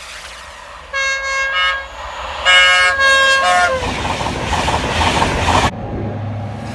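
A Virgin Trains East Coast train sounding its multi-tone air horn twice: a short blast about a second in, then a longer one whose pitch sags as it ends. The rushing, rattling noise of the train passing follows.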